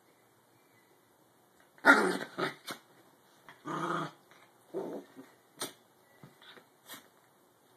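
Small dogs growling in play while tugging at a toy, in loud bouts starting about two seconds in, followed by several shorter, sharper sounds near the end.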